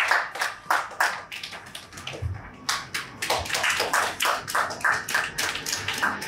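A small audience applauding, the separate hand claps distinct; the clapping thins briefly about two seconds in, with a low thump, then picks up again.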